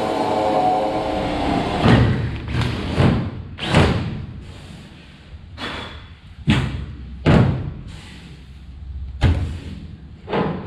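A power drill runs for about two seconds, drilling a hole through the aluminium deck sheet into a rib below. It is followed by about nine sharp, hollow thumps and knocks on the aluminium hull at uneven intervals, each ringing briefly.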